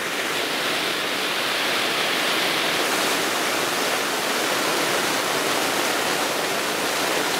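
Torrential rain pouring onto the fabric of a DOD Big One Pole tent, heard from inside: a loud, steady rush.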